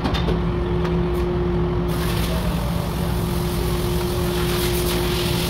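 Steady machine hum of an auto body shop, with a long even hiss starting about two seconds in and running on, and a few light clicks near the start.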